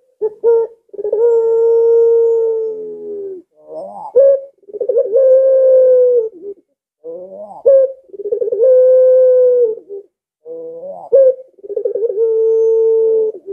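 A Barbary dove (puter) cooing loudly four times. Each call opens with short rising notes and ends in a long, held coo lasting about two seconds: the drawn-out 'pelung' coo that keepers prize.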